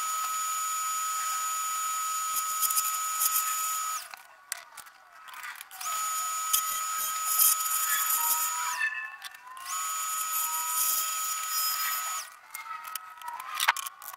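Electric power tool running with a steady high whine, stopping twice for a second or two, with knocks and handling noises in the pauses.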